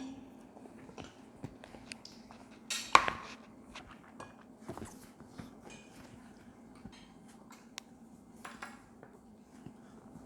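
Eating utensils clinking and knocking against dishes at a meal, one louder clink about three seconds in and scattered small clicks around it.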